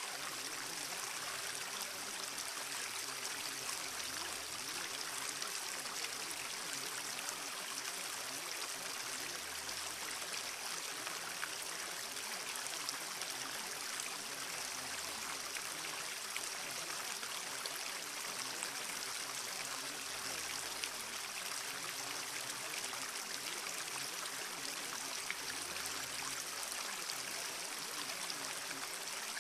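Steady rushing water like a flowing stream, unbroken throughout, with faint steady tones and a low hum underneath that swells about every five seconds.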